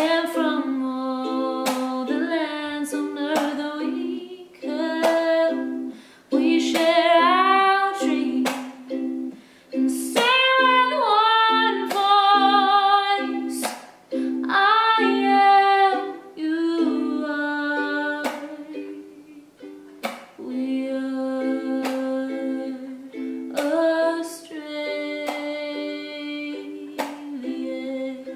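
A woman singing with vibrato while strumming chords on a ukulele.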